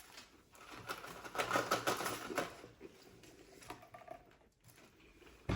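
Crackling crunches of extra-crispy fried chicken being bitten and chewed, densest between about one and two and a half seconds in, with one sharp knock at the very end.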